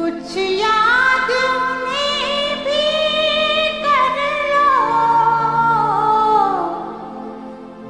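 A song with a high, probably female voice singing a slow melody that glides between held notes over quiet sustained accompaniment. The phrase begins suddenly and falls away in pitch and level near the end.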